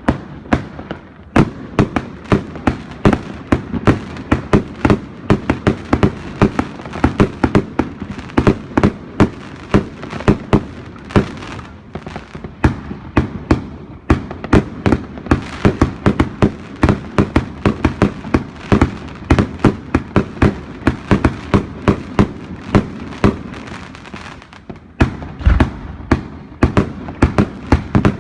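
Evolution Snowstorm 2.0 consumer firework going off in a long, rapid barrage of sharp cracks and bangs, several a second, with a brief lull and a heavier thump near the end.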